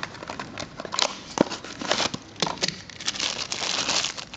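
Clear plastic bag crinkling and crackling in sharp, irregular snaps as a sprag clutch is handled inside it. The crinkling gets denser and louder from about three seconds in.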